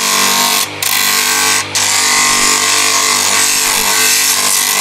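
Electric motor driving an abrasive disc, humming steadily while it grinds and shapes the wooden handle scales of a full-tang kukri with a dense hiss. The grinding noise drops out briefly twice in the first two seconds as the handle is lifted off the disc.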